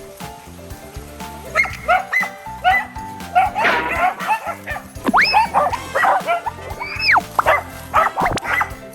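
Welsh Corgis barking and yipping in quick short calls over background music, with two longer whining calls that rise and then fall, about five and seven seconds in.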